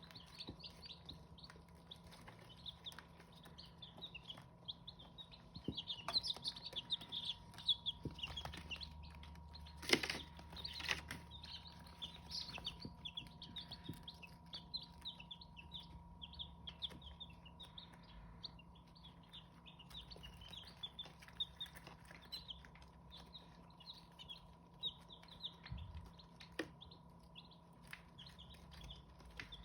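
Hmong chicken chicks peeping: many short, high chirps all through, with a loud knock about ten seconds in and a faint steady hum underneath.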